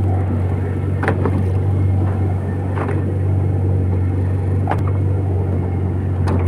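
Fishing boat's outboard engine running with a steady low drone, with a few brief knocks over it.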